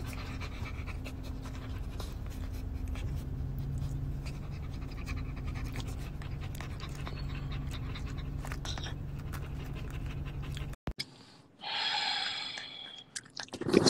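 A dog panting steadily over a low, steady hum. Near the end the sound cuts out for a moment, then a short high-pitched sound follows.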